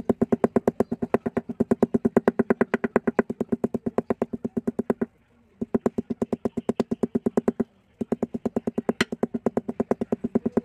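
A small hammer tapping rapidly and evenly, about seven strikes a second, on an old paintbrush's rusty metal ferrule and stiff bristles laid on a stone slab, each strike ringing briefly. The tapping stops for a moment twice, about five and eight seconds in. The beating loosens bristles that dried paint has made too hard to bend.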